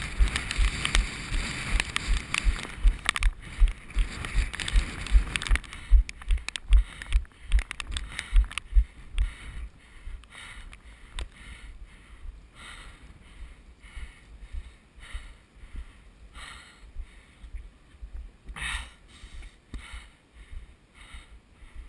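Running footsteps, a steady low thump about three times a second with rustling noise, that stop about nine seconds in. After that, softer and slower regular sounds come about once or twice a second.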